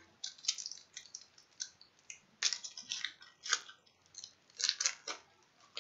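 Foil football-card pack being torn open and crinkled by hand: irregular crackling rustles, loudest about two and a half seconds in and again near the end.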